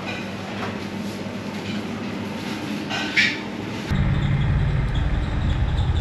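Quiet shop background hiss with one brief high squeak about three seconds in, then an abrupt switch to a loud, low, steady rumble of an outdoor street background.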